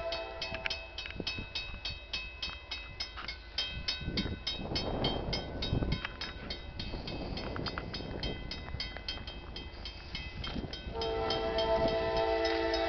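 Railroad grade-crossing warning bell ringing steadily, about four to five strikes a second, as a CSX train approaches. The locomotive's multi-note air horn sounds at the very start and again for a couple of seconds near the end, and a swell of rushing noise rises and falls in the middle.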